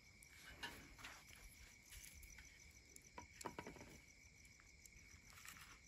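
Faint, steady chirping of crickets, with a few soft clicks and rustles of small objects being handled about a second in and again around three and a half seconds.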